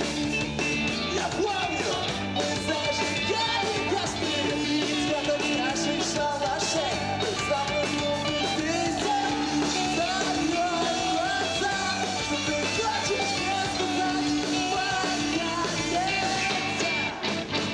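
A live emo rock band playing a song, with electric guitars, drums and a singer's voice over them.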